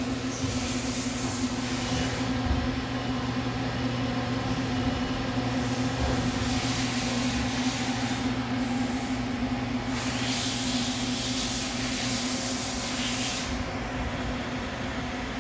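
Fadal VMC 4525 vertical CNC machining center running: a steady mechanical hum, with a hiss that swells and fades several times.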